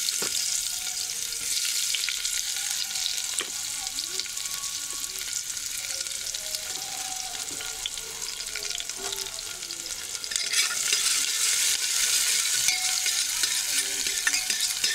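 Finely chopped onion sizzling as it fries in a spoonful of hot oil in an open pressure cooker, being stirred. The sizzle gets louder about ten seconds in.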